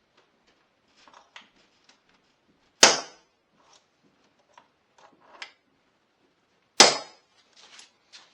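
Two sharp hammer blows on a metal punch, about four seconds apart, each with a short metallic ring, with light tool handling between. The punch is marking the screw-hole locations for the new lock on the steel safe door before drilling.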